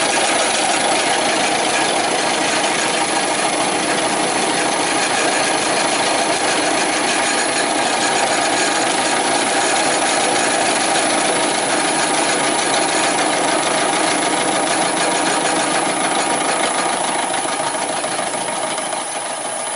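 Milling machine running, its end mill cutting the profile of a crank web held on a rotary table: a steady machining noise with a few held tones, easing slightly near the end.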